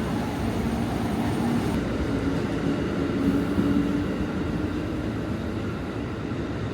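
Train rumbling along the platform track at a railway station, a steady, dense rumble with a faint hum audible through the middle.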